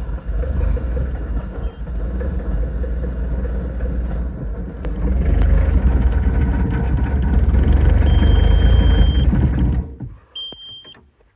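Diesel engine of a Bobcat 753 skid steer cranking over on a cold start and trying to catch, getting louder about halfway through, then dying away shortly before the end. A high steady beep sounds twice near the end.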